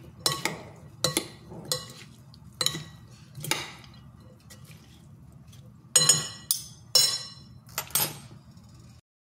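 Metal spoon and fork clinking against a glass salad bowl while tossing a salad, in irregular clinks with a pause of about two seconds in the middle. The sound cuts off abruptly near the end.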